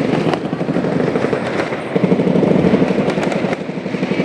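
Fireworks going off in a dense, rapid barrage of pops and crackles, with a few sharper cracks standing out.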